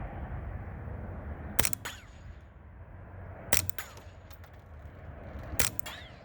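Ruger 10/22 semi-automatic .22 LR rifle fired three times through a SilencerCo Osprey 45 suppressor, about two seconds apart. Each shot is a short, muffled report followed within a fraction of a second by further sharp clicks. The CCI Standard Velocity rounds leave the muzzle at 1070 fps, below the speed of sound, so there is no supersonic bullet crack.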